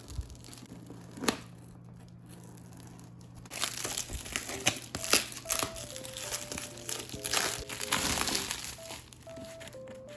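Packaging being crinkled and crumpled while a mini refrigerator is unboxed: a sharp click about a second in, then a long stretch of dense crinkling from about a third of the way through. Light mallet-percussion music plays along in the second half.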